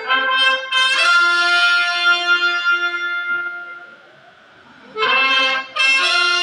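Mariachi band playing an instrumental introduction, an accordion-led melody over guitars: a few quick notes into a long held note, fading about four seconds in, then the same phrase starting again about a second later.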